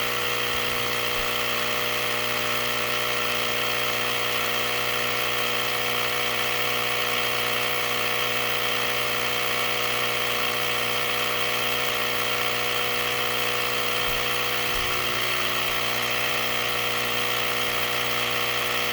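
Small portable air compressor running steadily with an even motor buzz, pumping up a flat four-wheeler tire toward its 20 psi setting.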